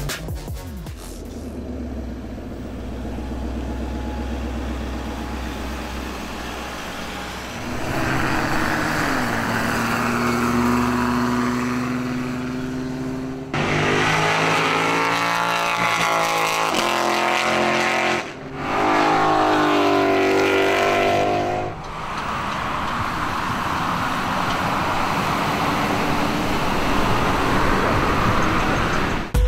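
Car engines running and accelerating. The pitch climbs about eight seconds in, and there are two loud bursts of acceleration in the middle, each lasting a few seconds.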